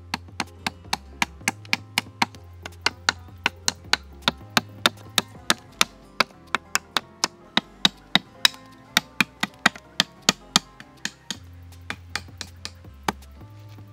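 Hatchet chopping at a wooden pole in quick, sharp strokes, about three or four a second, pausing briefly past the middle, over background music with a low bass line.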